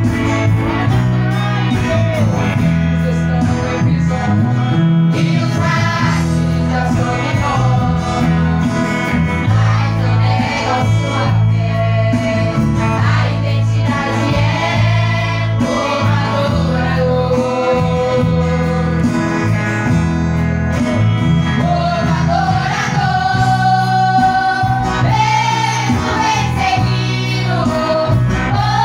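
A live gospel worship song: a group of women singing, led by one on a microphone, backed by keyboard and guitars through the church's sound system, with a heavy bass line.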